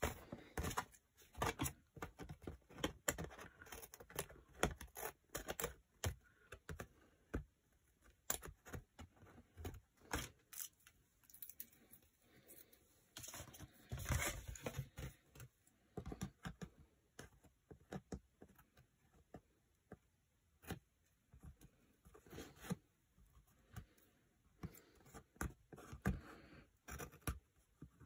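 Scissors cutting through scrapbook paper: a long run of short, irregular snips, with the paper rustling and sliding as it is handled between cuts.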